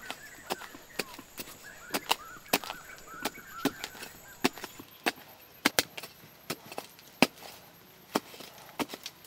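A small hand hoe chopping into packed dirt in quick, irregular strikes, about two a second, each a sharp knock with a gritty scrape of soil.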